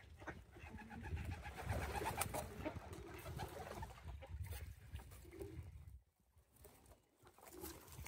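Feral rock pigeons cooing at close range: a run of low throaty coos in the first half, then short single coos later, over a low rumble that drops out about six seconds in.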